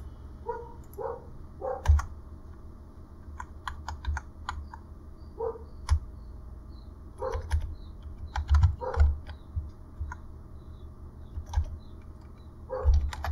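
Computer keyboard being typed on in short, irregular bursts of keystrokes.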